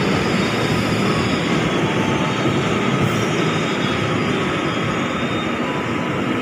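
Passenger coaches of a train rolling past on the track: a steady rumble and hiss of wheels on the rails.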